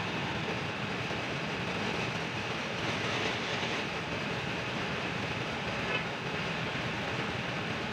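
Compressed-air paint spray gun hissing steadily as paint goes onto a car bonnet, over the steady running of the workshop air compressor.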